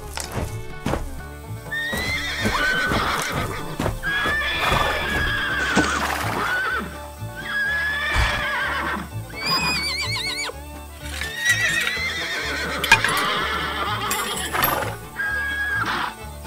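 Horse neighing and whinnying several times, each call wavering in pitch, over background music.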